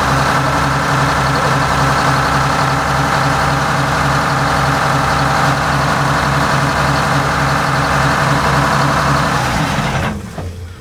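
Detroit Diesel 12V71 two-stroke V12 marine diesel idling with a steady, even pulse, then winding down and stopping near the end.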